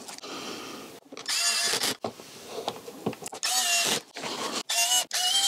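Cordless electric screwdriver driving long side-panel screws home, its motor whining in three short runs of under a second each, the pitch rising as each run starts.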